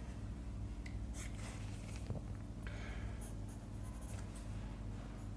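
Faint pencil scratching on paper as a line is drawn along a drafting scale, over a low steady hum.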